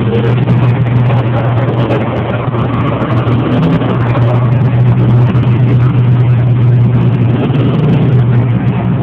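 Race truck engines running hard on a dirt track, a loud steady drone that eases off near the end.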